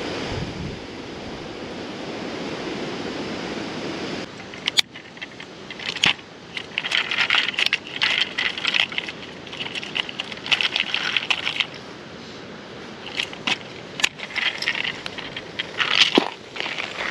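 A steady rushing noise for about four seconds, then irregular crackling and crunching rustles with sharp clicks: movement in dry fallen leaves.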